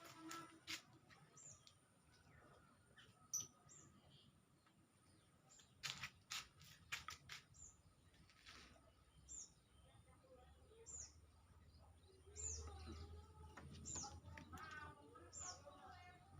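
Faint bird chirps: short, high, falling notes every second or two, with a few sharp clicks around the middle over a low hum.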